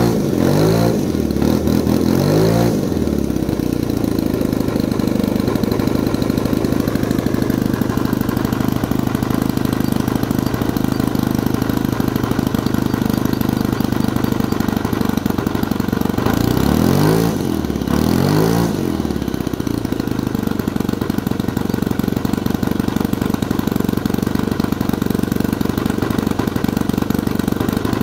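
Saito 125 four-stroke glow engine running on a ground test, turning a propeller that is too big for it, on 5% nitro fuel. It runs steadily, with its speed swinging up and back down briefly near the start and again a little past halfway.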